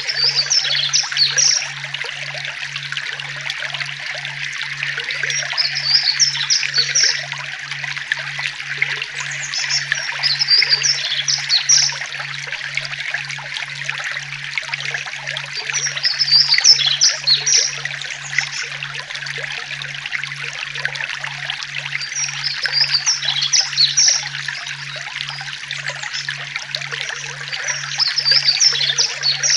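A forest stream trickling steadily, with a songbird singing short, high twittering phrases about every five or six seconds.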